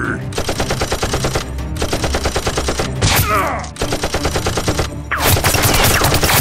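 Bursts of rapid automatic gunfire sound effects, dubbed over a Nerf gun fight: three runs of about a second each, a short sweeping sound after the second, then denser, heavier firing from about five seconds in.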